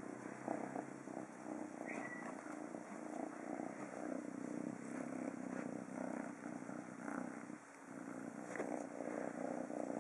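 Kitten purring steadily while being stroked, with a brief break about three-quarters of the way through.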